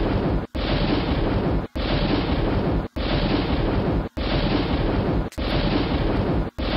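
Thunder sound effect played as a loop: a loud, dense noise that breaks off briefly and starts again about every 1.2 seconds.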